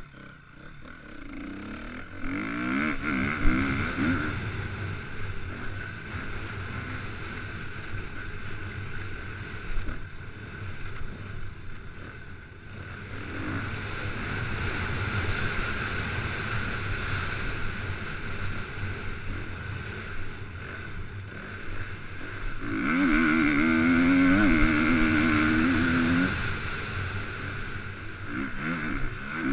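2014 KTM 250 EXC-F's single-cylinder four-stroke engine revving up and down under load as the bike is ridden round a dirt track. It is loudest in two surges, one a few seconds in and another longer one near the end.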